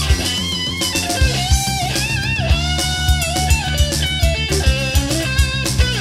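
Instrumental passage of a rock song: electric guitar lead with bent, sliding notes over bass and a steady drum-kit beat.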